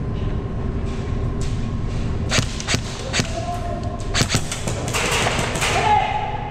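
Scattered sharp snaps and knocks of airsoft gunfire and BBs striking plywood barricades, a few at first and coming thicker about four to six seconds in, over a steady background hum.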